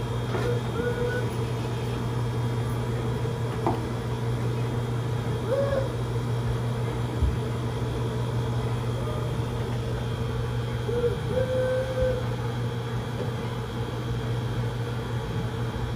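A steady low mechanical hum runs throughout, with a few brief, faint pitched calls over it.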